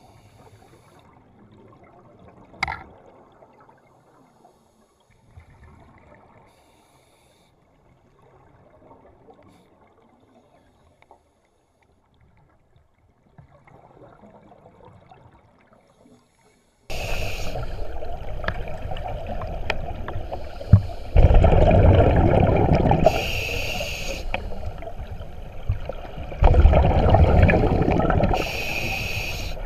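Scuba divers' exhaled bubbles heard underwater through a camera housing: faint bubbling bursts every four or five seconds, then past the halfway point a loud rushing noise with two stronger bubbling surges about five seconds apart.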